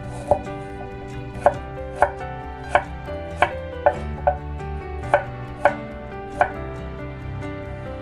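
Knife chopping on a cutting board: about ten sharp, separate chops at an uneven pace.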